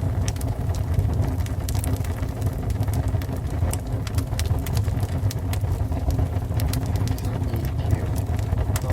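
Fire burning: a steady low roar of flames with irregular sharp crackles and pops.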